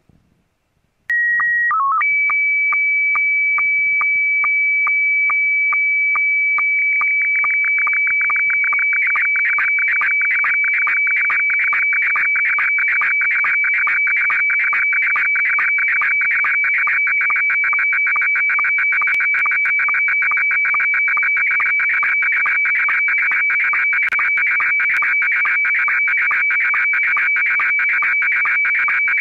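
Slow-scan television (SSTV) image signal in Scottie S1 mode. About a second in, a short calibration header of held tones with a brief dip marks the start. Then a steady high tone runs with a regular tick a little over twice a second, one line sync per image line, and it turns into a dense warbling tone as the lines carrying the picture's text are sent.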